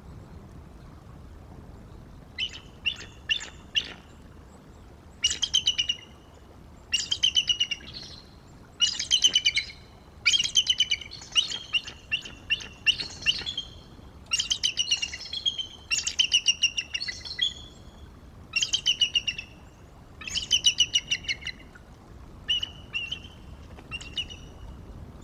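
Bald eagle calling close to the microphone: about a dozen bursts of rapid, high-pitched chattering notes, each under a second long and repeated every second or two, from about two seconds in until near the end.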